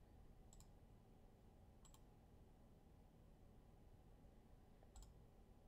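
Near silence with three faint, sharp clicks from working a computer: about half a second in, near two seconds, and about five seconds in.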